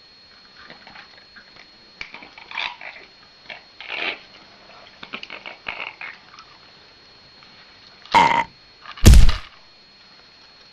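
Light clicks and scrapes of pets feeding from a shared plate, then two loud harsh animal cries about a second apart near the end, the second the louder and deeper.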